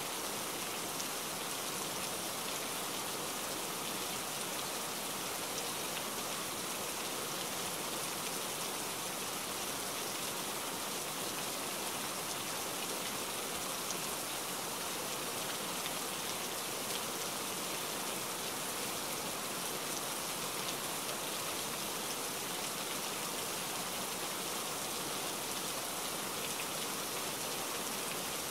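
Steady rain falling on wet paving, an even hiss with a fine patter of individual drops.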